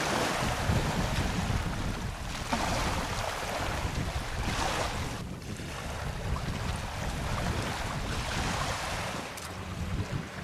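Wind gusting on the microphone, with small waves washing in surges every couple of seconds. A low steady hum joins near the end.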